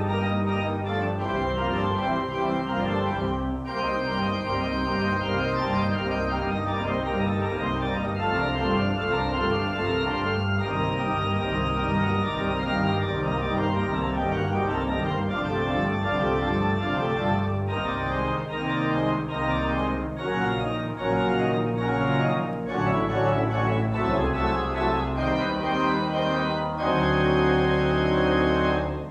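Organ music: sustained chords over a moving bass line, likely the closing postlude of the service. It ends on a long held chord that stops abruptly near the end.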